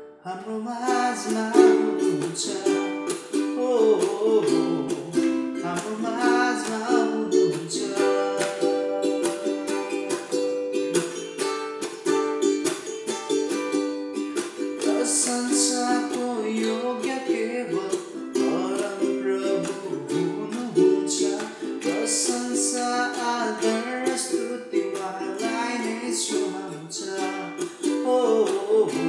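Makala ukulele strummed in a steady rhythm, moving through the G, Em, C and D chords as an instrumental break, with the sound of a small room.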